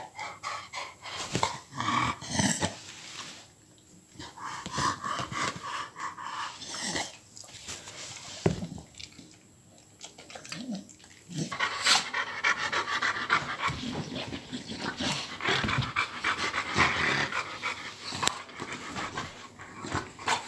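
French Bulldog and Old English Bulldog panting and sniffing in uneven bursts as they play with kittens, with quieter pauses between.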